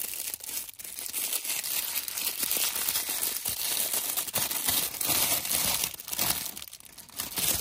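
Plastic wrapping around a Happy Meal minion toy crinkling and tearing as it is pulled open by hand, in an irregular run of crackles that eases off near the end.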